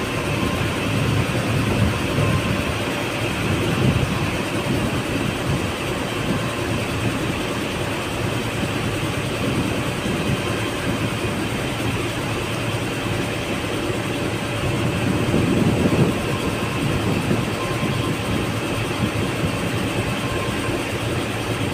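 A boat's engine running steadily, with gusts of wind buffeting the microphone.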